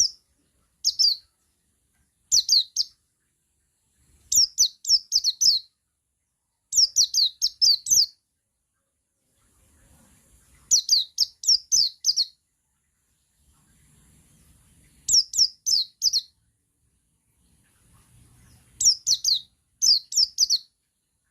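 Male pleci buxtoni white-eye singing its ngalas song: short bursts of three to five quick, high, downward-sliding notes, repeated about every two seconds.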